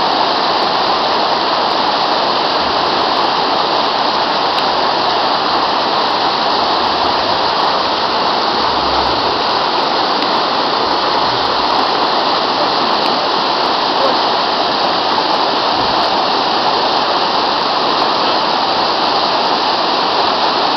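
Fast mountain river rushing over rocks: a steady, unbroken rush of water.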